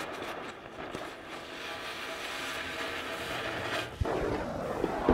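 Oxy-fuel cutting torch running with a steady rushing hiss while it preheats and cuts through a tack weld on steel pipe. About four seconds in there is a single low thump, and the torch sound comes on louder and lower.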